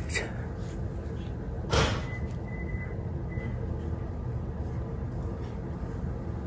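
Steady low room hum, with one short sharp sound about two seconds in and a faint thin high whine coming and going just after it.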